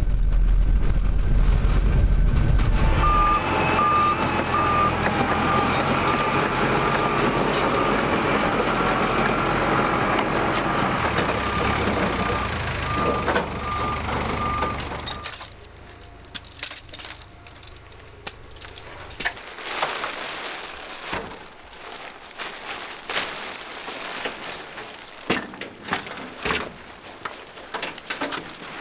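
Crawler dozer's diesel engine running, deep and loud at first, then joined for about twelve seconds by its steady reversing beeper while it shifts a steel shipping container. About halfway through the engine and beeping stop, leaving quieter scattered knocks and clanks.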